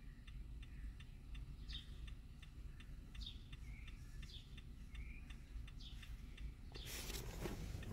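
Faint, regular ticking, about two to three ticks a second, with a few short high chirps over it; a rush of noise comes in near the end.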